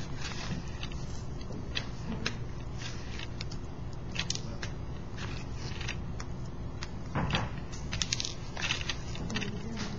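Hot soldering iron working solder on fluxed copper, with irregular small crackles and pops from the flux, over a steady low hum.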